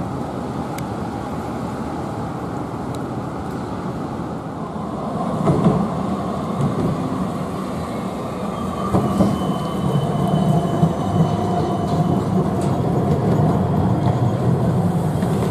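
Melbourne low-floor electric tram running along the street track and passing close by, its wheels clicking on the rails over a steady street hum. The sound grows louder about five seconds in and again in the second half as the tram comes near.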